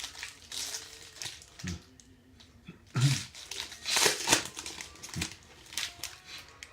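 A baseball card pack's foil wrapper being torn open and crinkled in the hands, in uneven crackles with the loudest rustles midway through.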